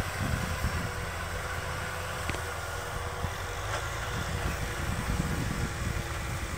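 Kubota farm tractor's diesel engine running steadily under load as it pulls a tillage implement through dry, cloddy soil: a continuous low rumble.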